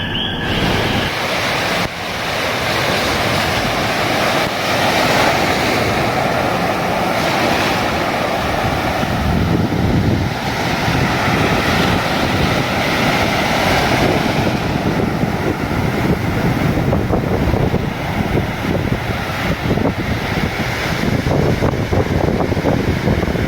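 Surf washing ashore in a steady rush of noise, with wind buffeting the microphone.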